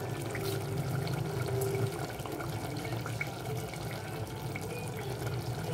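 Steady watery hiss with a low hum in the kitchen, with a few faint clicks.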